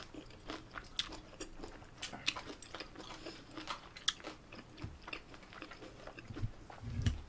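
Close-miked chewing and biting of a bossam (boiled pork) meal: irregular small crunches and wet mouth clicks, quiet and close.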